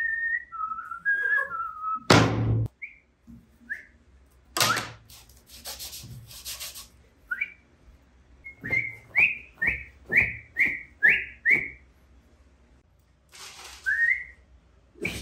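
Whistling in short clean notes, with a quick run of about seven rising notes in the middle, between sharp knocks of metal casting gear being set down on the workbench. Near the end comes a gritty scrape of a shovel moving moulding sand into a wooden sieve.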